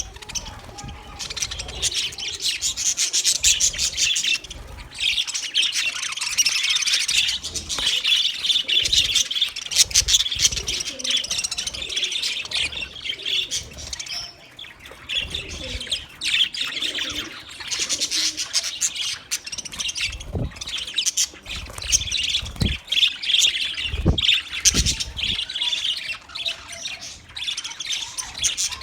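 A group of budgerigars chirping and warbling without pause, a dense stream of rapid high chirps with occasional squawks.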